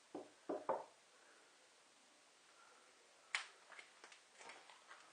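Three soft knocks in the first second, then a run of light clicks and taps near the end.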